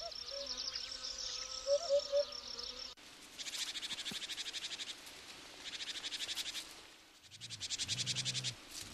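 Summer insects chirping in fast high pulses, steady at first, then in spells of about a second with short pauses between. A few short lower chirps about two seconds in.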